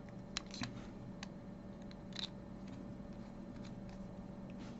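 A handful of small, sharp metal clicks and taps from the parts of a brass bolt-action pen being fitted back together, spaced irregularly over a faint steady hum.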